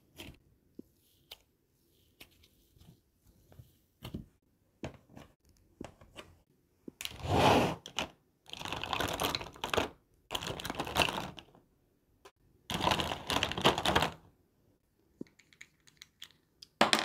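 Faint crackles and pops of fluffy cloud slime being pressed by hand, then a hand rummaging through a plastic basket of small plastic dye bottles: several loud bursts of bottles clattering and knocking together, and a few single clicks as one bottle is picked out.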